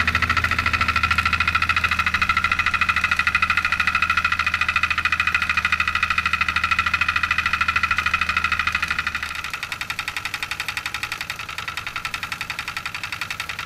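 REGNER miniature live-steam engine running fast, a rapid, even beat over a steady hissing whine. About nine seconds in, a low hum drops away and the sound gets somewhat quieter.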